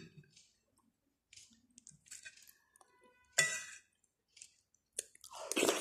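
Metal spoon clinking and scraping on a plate while scooping boiled pumpkin, with the sharpest clink about three and a half seconds in. Soft mouth noises of eating swell near the end.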